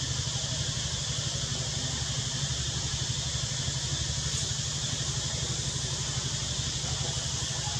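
A motor idling nearby: a steady low rumble with a fast, even pulse, under a constant high hiss.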